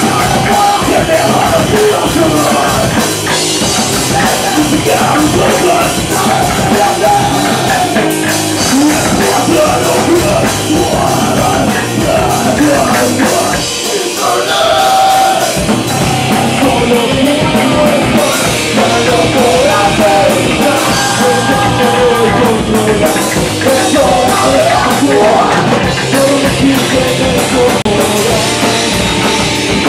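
Live rock band playing loud: electric bass, electric guitar and drum kit, with a male singer. The low end drops out for a moment about halfway through.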